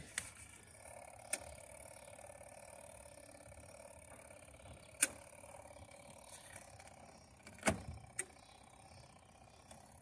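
Mechanical wash-timer dial of a Costway twin-tub portable washing machine being turned, with a few sharp clicks over a faint steady hum; the wash motor does not start.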